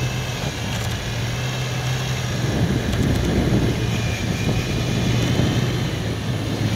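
Off-road 4x4's engine running steadily, getting a little louder and rougher from about two and a half seconds in.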